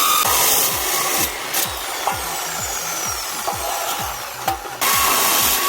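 Background music with a steady beat of about four beats a second, over a continuous rasping, scraping sound that breaks off briefly twice.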